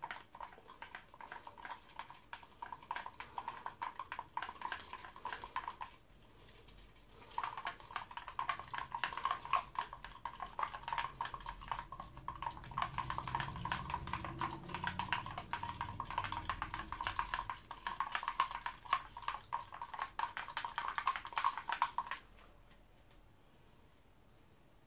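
Thin stick scratching and scraping rapidly in a slot in a plastic container lid. It goes on for about six seconds, pauses briefly, starts again and runs for another fifteen seconds before stopping abruptly.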